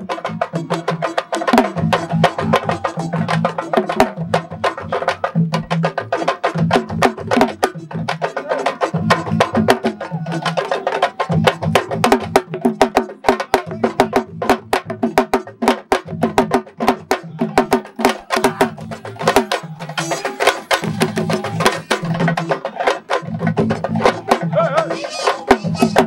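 Fast, dense drumming music: many sharp hand-drum strokes over a repeating lower beat, in the style of the sabar drumming that accompanies wrestlers' dances.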